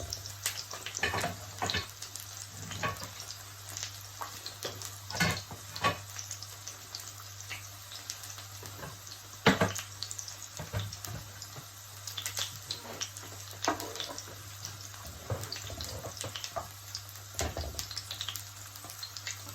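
Hot oil and butter sizzling in a frying pan: a steady hiss broken by irregular crackles and pops.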